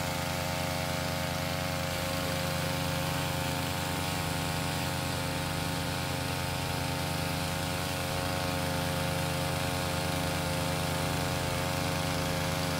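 Small gasoline engine of a portable water pump running steadily, pumping creek water through a hose around the work site.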